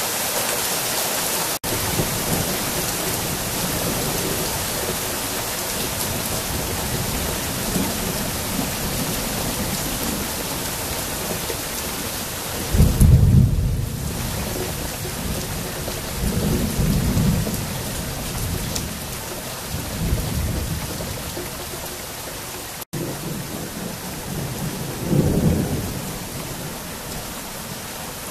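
Thunderstorm: a steady hiss of heavy rain with low rolls of thunder. The loudest rumble comes about halfway through, another follows a few seconds later, and a further one comes near the end.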